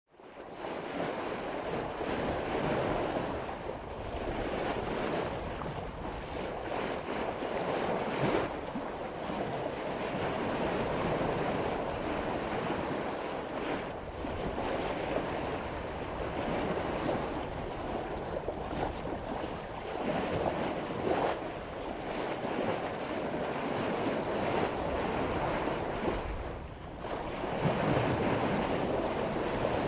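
Sea water rushing and splashing along a sailboat's bow as the hull cuts through waves at about 5 knots, swelling and easing every few seconds, with wind on the microphone.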